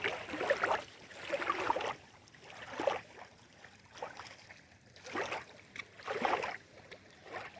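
Small lake waves lapping at the shore in irregular soft washes.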